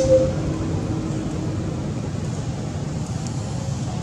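Steady low rumbling background noise, with a brief high tone right at the start.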